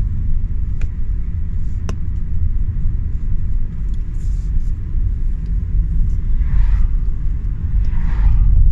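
Steady low rumble of road and engine noise inside a moving car, with two sharp clicks in the first two seconds and two brief hissing swells near the end.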